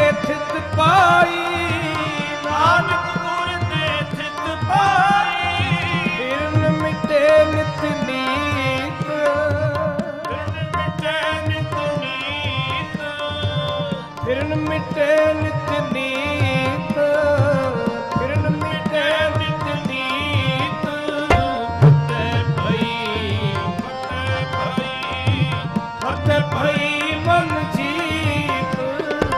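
Gurbani kirtan: two harmoniums sounding sustained chords and melody, a tabla playing a steady, busy rhythm, and male voices singing the hymn.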